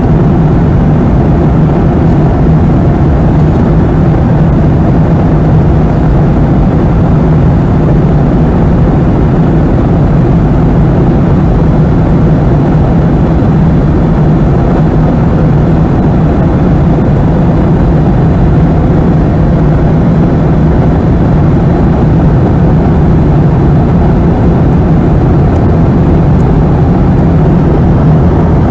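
Steady cabin noise inside a Boeing 717 in flight: the low, even drone of its rear-mounted Rolls-Royce BR715 turbofan engines mixed with the rush of air along the fuselage, heard from a seat near the back.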